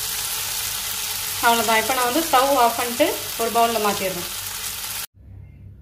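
Raw banana and grated coconut thoran sizzling in a non-stick pan while a wooden spatula stirs it, a steady frying hiss that cuts off suddenly about five seconds in.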